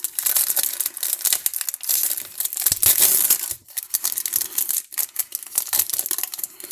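Wrapper of a baseball card pack crinkling and tearing as it is ripped open by hand, an irregular crackle throughout.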